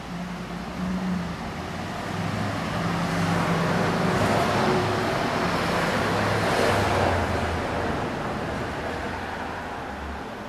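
A motor vehicle passing by on the street. Its engine and tyre noise swells to a peak in the middle and then fades away.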